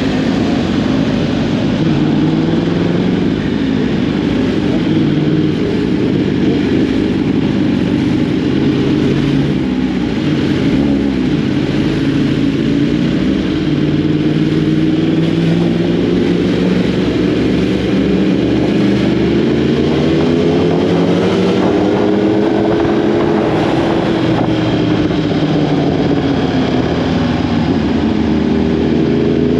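Sport motorcycle engine running steadily under way, its pitch slowly rising and falling with the revs.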